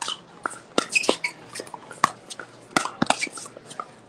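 Pickleball paddles striking the plastic ball: a string of sharp pops at irregular spacing, several a second, some loud and some fainter.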